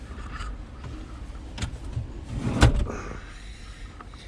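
A couple of sharp knocks, then one heavy thump about two and a half seconds in, over a low rumble.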